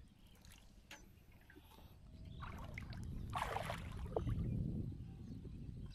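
Shallow marsh water splashing and sloshing as a person wades and works a fishing net, with a brief louder splash about three and a half seconds in.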